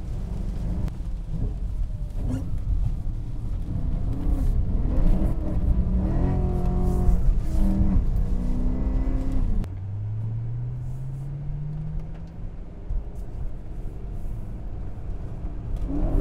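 BMW E90 M3's S65 V8 with aftermarket exhaust, heard from inside the cabin, revving up and down under throttle. About ten seconds in the sound drops away, then one engine note climbs steadily for a few seconds.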